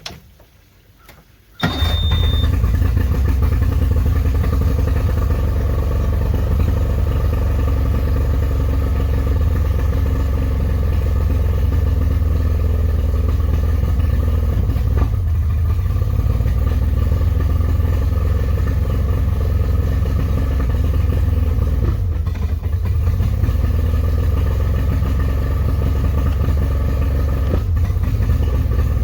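A 40 hp Tohatsu outboard motor starts about two seconds in, with a brief high beep as it catches, and then runs at a steady idle. This is the test run on hose water after a new impeller was fitted in the lower unit.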